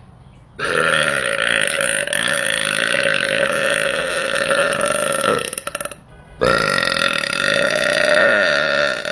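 A woman letting out two long, loud burps, each lasting several seconds, with a pause of about a second between them.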